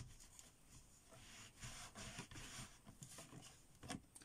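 Faint rubbing as a clear rubber stamp on its acrylic block is wiped clean of ink, with one light tap near the end.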